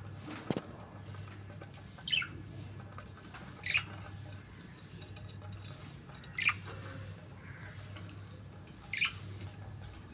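Budgerigar giving four short chirps, each a quick downward sweep, a couple of seconds apart, over a steady low hum; a single click near the start.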